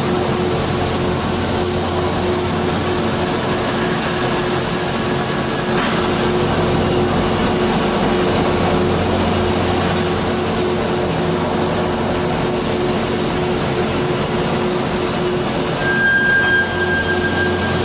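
Peddinghaus BDL 1250/9A structural steel drilling machine running and drilling holes in steel plate: a loud, steady mechanical drone with a constant hum. A thin, steady high whine joins near the end.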